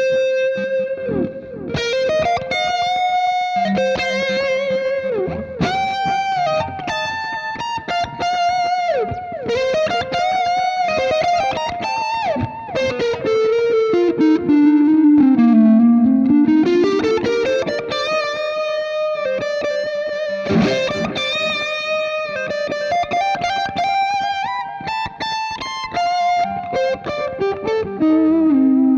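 Fernandes electric guitar played through a Hotone Ampero One amp-modelling multi-effects unit: a melodic single-note lead with vibrato and bent notes. Near the middle, a run descends to a low note and climbs back up.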